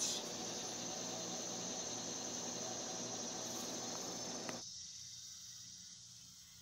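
Steady high-pitched insect chirring over a background hiss. The hiss cuts off suddenly about four and a half seconds in, and the chirring fades toward the end.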